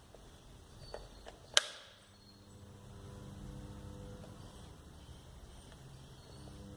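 A sharp click about a second and a half in, then a ceiling fan's electric motor starts and runs with a steady hum.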